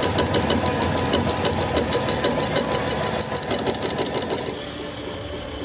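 Workshop machine running with a fast, even clicking, about five or six clicks a second, over a steady hum; the clicking stops abruptly about four and a half seconds in, leaving a quieter steady machine noise.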